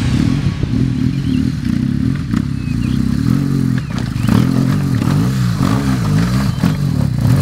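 Large enduro motorcycle engine revving up and down in repeated throttle blips as it climbs a rocky trail, with stones clattering under the tyres.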